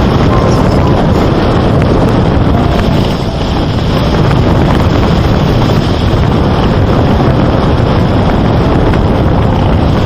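Steady, loud rushing noise with no rhythm or distinct events.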